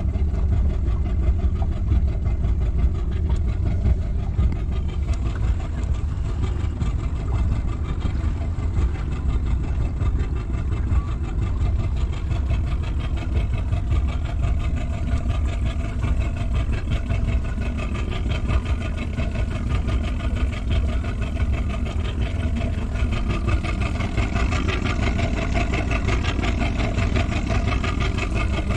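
A small fishing boat's motor running steadily at low trolling speed.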